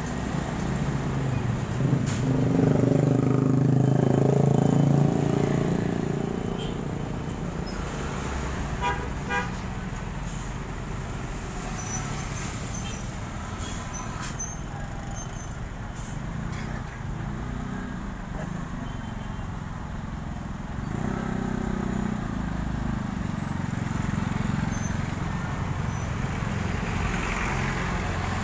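Street traffic: engines of motorbikes, trucks and minibuses passing close, with occasional horn toots. The loudest is a heavy engine going by a few seconds in.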